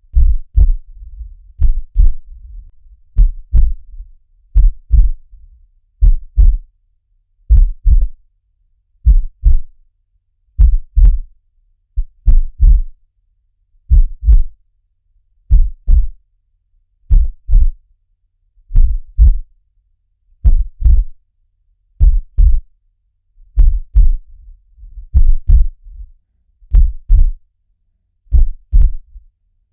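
Heartbeat: slow, even 'lub-dub' double thumps, deep and short, at about forty beats a minute.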